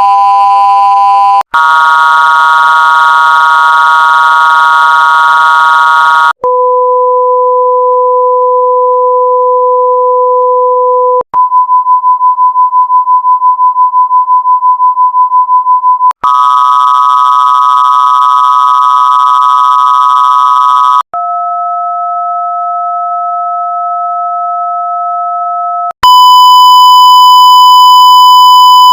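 TV 'no signal' test tone, a steady electronic beep, played as a run of effect-altered versions of about five seconds each with a short break between them. Some versions carry a buzzy stack of overtones, some split into two steady pitches, and one pulses about five times a second.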